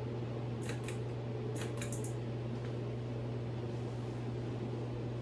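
SMC DC42 ceiling fan coasting down after being switched off from high speed, over a steady low hum, with a few light clicks in the first two seconds.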